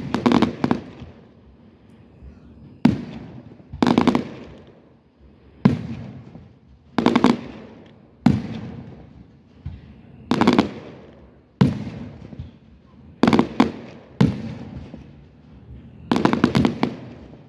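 Aerial fireworks shells bursting: about a dozen sharp booms spaced a second or two apart, some coming as quick double or triple reports, each trailing off in an echo.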